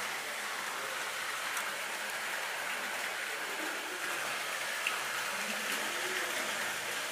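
Steady rushing of flowing water in an underground tunnel, an even hiss with no rhythm, with a faint distant voice about five and a half seconds in.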